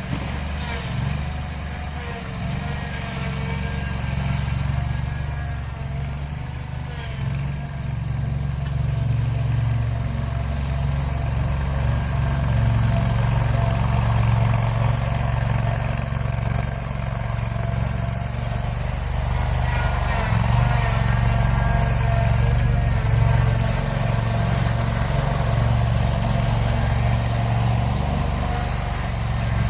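A Scag Turf Tiger zero-turn mower's engine running steadily as it pushes a snow plow, getting a little louder about halfway through.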